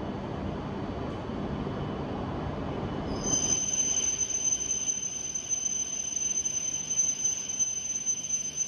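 E5-series Shinkansen train pulling in and slowing, with a low rumble. About three seconds in, a steady high-pitched squeal sets in and holds as the train slows.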